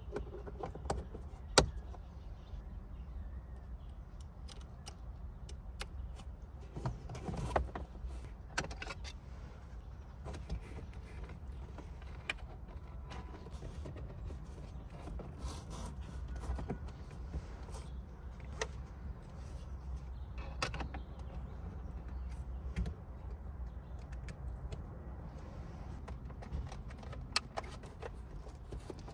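Hands working the plastic overhead console trim and dashcam power cable: scattered light clicks, taps and rustles over a steady low rumble, with a few sharper clicks, the sharpest about a second and a half in and about twenty seconds in.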